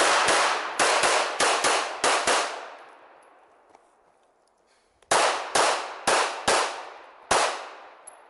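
Pistol shots fired in a practical shooting (IPSC) stage. About eight quick shots come in the first two and a half seconds, then a pause of about two and a half seconds, then five more shots roughly half a second apart. Each shot has a short echoing tail.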